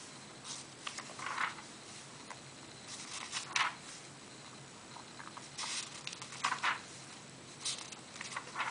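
Paper pages of a paperback book being handled and turned by a small child's hand: a series of short papery rustles, irregularly spaced about a second apart.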